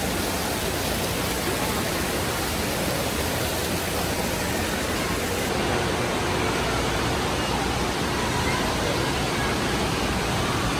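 Waterpark ambience: a steady rush of moving water with faint voices mixed in.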